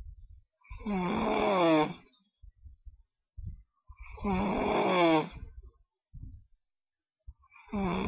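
A person snoring: three long snores about three seconds apart, the last running past the end. Each carries a pitched, hum-like tone that sags slightly in pitch.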